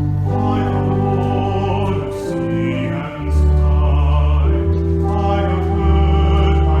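Slow church music that starts suddenly, with long held chords over deep steady bass notes.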